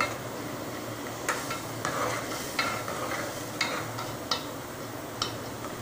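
Metal ladle stirring a thick tomato and ridge gourd curry in a steel pot, over a steady sizzle from the pan. The ladle clinks and scrapes against the pot about six times.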